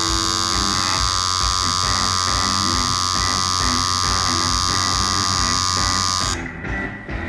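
Tattoo machine buzzing steadily with a high whine as its needle works ink into skin, cutting off about six seconds in.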